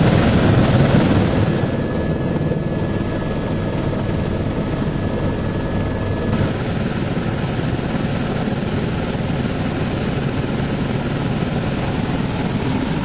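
Steady drone of a small aircraft heard from inside its cabin, slightly louder for the first second and a half, with a faint steady whine over it.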